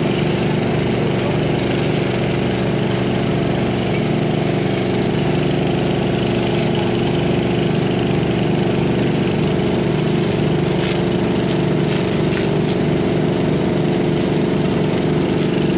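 A small engine running steadily at one constant speed, with no change in pitch or loudness.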